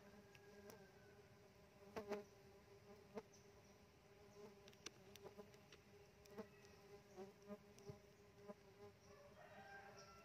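Faint steady buzzing hum of Tetragonula laeviceps stingless bees flying around their opened hive box. Scattered small clicks and scrapes of a knife working among the wooden box and wax pots cross the hum, the loudest pair about two seconds in.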